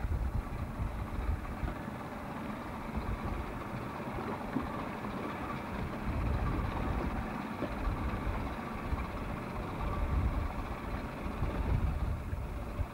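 Steady, fluctuating low rumble with a wash of water noise on a camcorder microphone out on open water.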